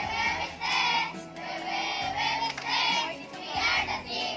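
Children singing together to recorded backing music, over held bass notes that change every second or two.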